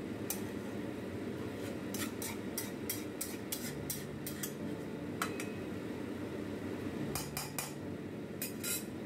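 Metal spatula scraping and clinking against an aluminium kadai while bottle gourd and prawns are stirred: irregular knocks and scrapes, thinning out after about five seconds, with a last few clinks near the end. A steady low hum runs underneath.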